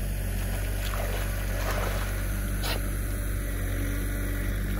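Steady low engine drone, typical of earth-moving machinery running, with a faint splash or two from dogs swimming.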